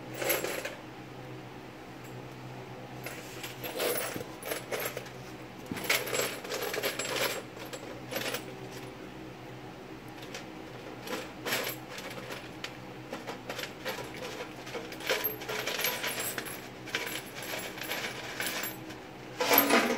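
Small pieces of scrap metal clinking as they are dropped into a hot crucible, in irregular clusters of metallic clinks. Underneath is the steady hum of a propane furnace burner.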